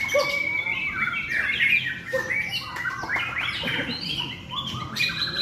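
White-rumped shama (murai batu) singing a fast, varied run of whistles, chirps and harsher notes without pause.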